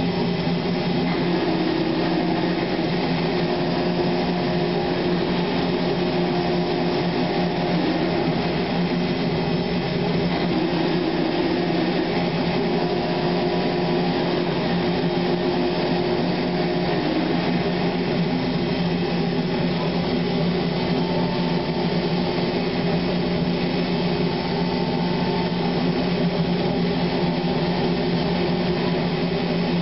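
Industrial machinery running steadily, a constant hum made of several steady tones over a noisy bed.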